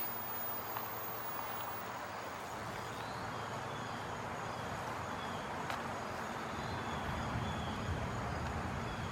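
Steady outdoor background with faint insects chirping; a low rumble comes in over the last couple of seconds.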